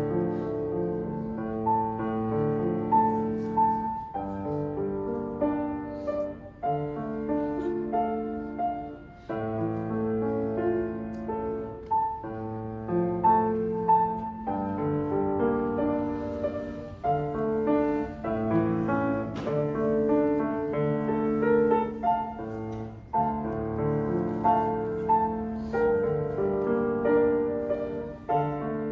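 Solo piano playing a gentle melody in repeated phrases over sustained, pedalled chords.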